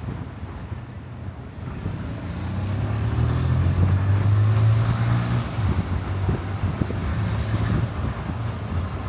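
Car driving: a low engine hum and road noise that swell to their loudest around the middle, then ease off.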